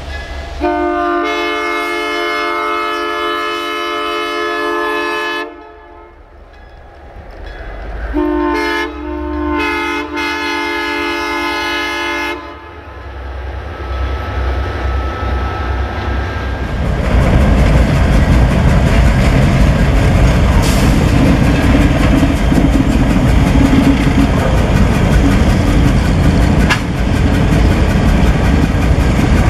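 A train horn sounds two long blasts of about five and four seconds. Then the diesel engine of a CN GP38-2 locomotive, an EMD 16-cylinder 645 two-stroke, builds up and runs with a loud, steady throb.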